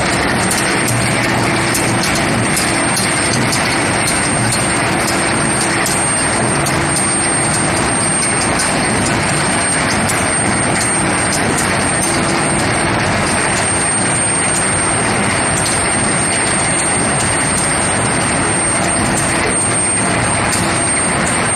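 Induction heating furnace running: steady, loud machine noise with a constant high-pitched whine over it.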